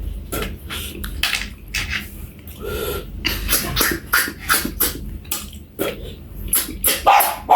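Close-up eating sounds: chewing with wet lip-smacks and mouth clicks in quick irregular succession, with a short sucking slurp about three seconds in.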